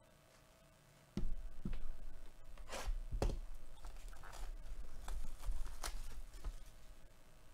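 A sealed Topps Tier One trading card box being handled and opened by gloved hands: plastic wrap rustling and cardboard scraping, with several sharp knocks, starting about a second in.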